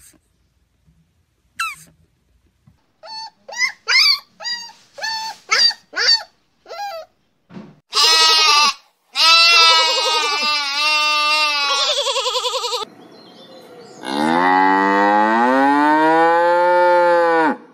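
Two short high squeaks, then a young goat bleating: a string of short bleats followed by two long quavering bleats. Then cattle mooing: one long deep moo that rises and then falls.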